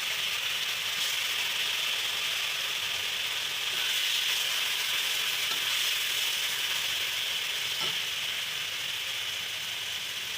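Hot oil sizzling steadily in a pan as taro leaves (kochu shak) are tempered in it; the sizzle starts suddenly just before and holds evenly.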